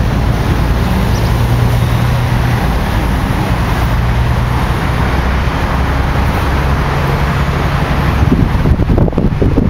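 Sightseeing bus engine running with a steady low hum under road and traffic noise, heard from the open top deck. Near the end, wind buffets the microphone.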